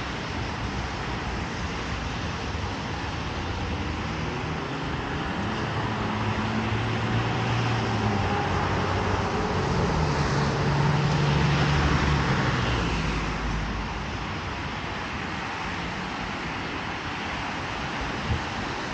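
Road traffic on a wet street: a steady hiss of tyres on wet asphalt, with a vehicle's engine growing louder, passing about two-thirds of the way in, then fading.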